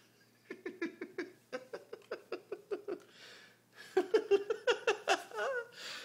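A person laughing: a run of quick chuckles, about four or five a second, that gets louder about four seconds in and trails off in a falling laugh.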